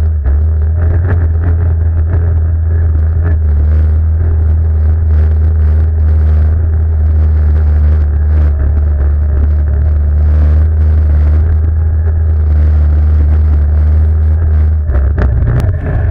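ATV quad bike engine running loud and close at steady revs, its note changing near the end.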